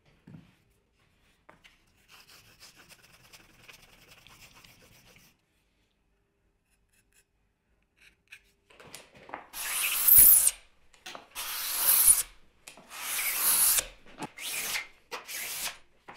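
Hand plane cutting along an ash board in about six long, hissing strokes, the first two the loudest. Before that comes a few seconds of faint, quick rubbing.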